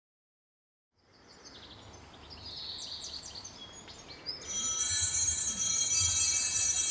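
Birds chirping faintly, then about four seconds in a cluster of small altar bells starts ringing, a steady, shimmering high ringing much louder than the birds: the signal for the blessing with the Blessed Sacrament in the monstrance.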